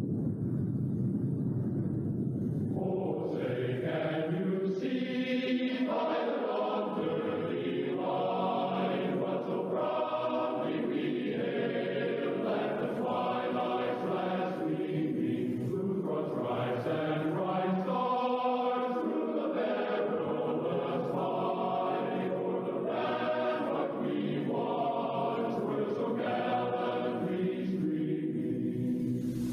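Choir music: voices holding long chords that change every second or so, coming in about three seconds in over a low rumble.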